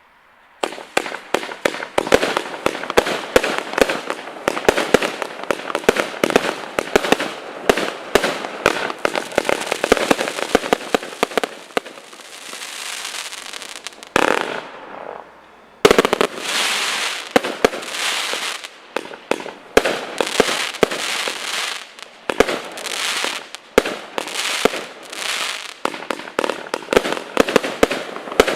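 A 216-shot multi-calibre compact firework cake firing rapid volleys of shots and bursts with crackle, starting about half a second in. The firing eases to a lull around the middle, then resumes with a sharp bang and dense volleys again.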